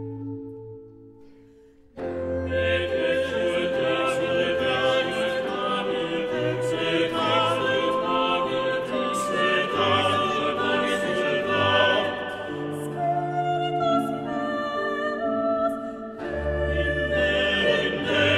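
Background music: a held chord fades out, then about two seconds in a classical operatic piece starts suddenly, with a singing voice over an orchestra.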